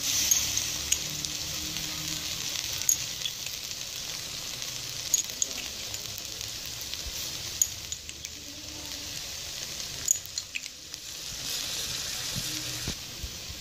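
Steady sizzle of rice cooking in a steel pot over a high flame as its last moisture cooks off, with a few faint clicks scattered through it.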